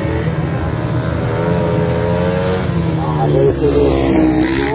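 Speedway sidecar outfits' engines running flat out around the dirt track. One outfit passes close by near the end, growing louder, with its pitch falling as it goes past.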